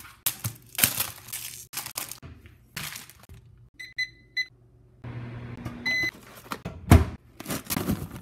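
Microwave oven keypad beeping: three quick beeps about four seconds in and a single beep about two seconds later, with a low steady hum from about five seconds in. Knocks and clatter from handling things on the counter surround it, with one loud thump about seven seconds in.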